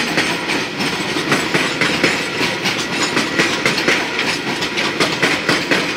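Coal train's hopper wagons rolling past, their wheels clacking over the rail joints in a quick, uneven stream of knocks over a continuous rumble.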